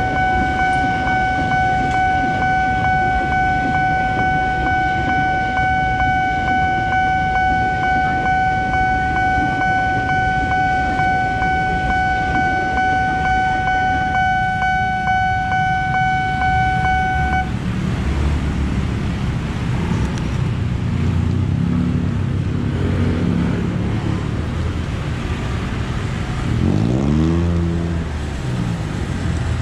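Level-crossing warning alarm sounding a steady electronic tone while a KRL Tokyo Metro 6000-series electric commuter train rumbles past. The alarm cuts off about 17 seconds in. Motorcycle and minibus engines then pull away across the tracks, one engine rising and falling in pitch near the end.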